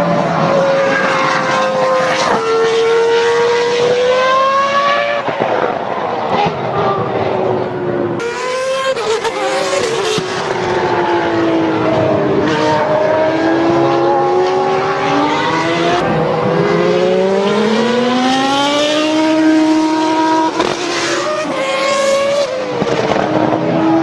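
Several go-karts running together, their engine notes overlapping and rising and falling in pitch as the drivers speed up and slow through the corners.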